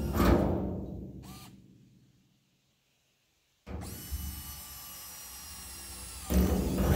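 Electric drill boring drainage holes in a galvanized steel livestock water trough. The metal tub booms and rings like a drum right at the start, dying away over about two seconds. The drill's steady whine starts again about halfway through, and a second boom rings out from the tub near the end.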